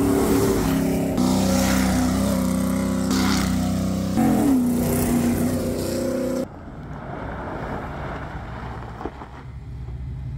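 Toyota Sequoia's 4.7-litre V8 revving hard through its exhaust, the pitch stepping between engine speeds and sliding down about four seconds in. About six seconds in the sound cuts suddenly to a quieter, duller engine sound as the truck drives off.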